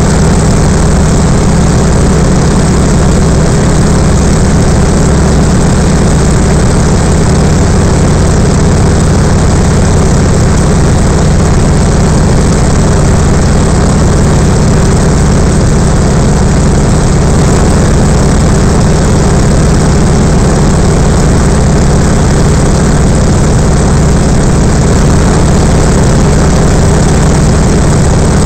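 Yak-52's nine-cylinder M-14P radial engine and propeller heard from inside the cockpit in flight: a loud, steady drone that holds one pitch throughout.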